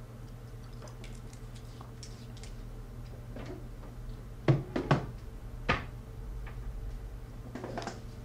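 Kitchen cupboard door and items handled inside it: three sharp knocks and clunks around the middle, with fainter clicks around them, over a low steady hum.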